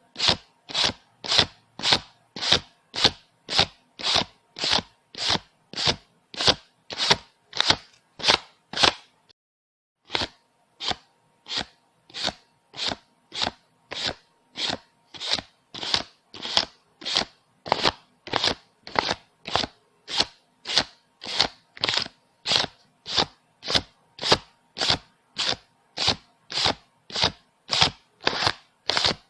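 Paper bills being counted one at a time, each note giving a short crisp snap, about two a second. The counting stops for about a second roughly a third of the way in, then carries on at the same pace.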